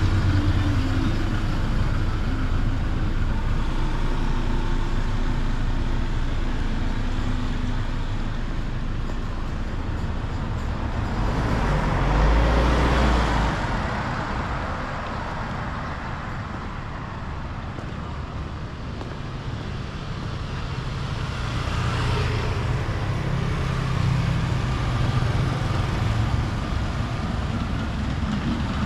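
Street traffic: a steady hum of cars and motorbikes on the road. One vehicle passes close about twelve seconds in, the loudest moment, and a smaller pass comes around twenty-two seconds.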